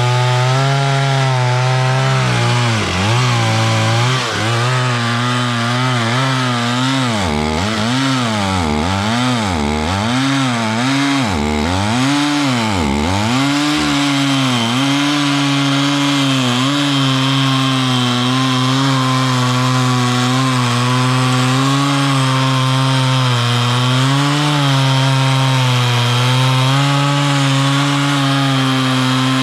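Stihl 440 two-stroke chainsaw at full throttle sawing through wood. Its engine speed dips and recovers about once a second as the chain bites, then it holds a steady high speed for the second half.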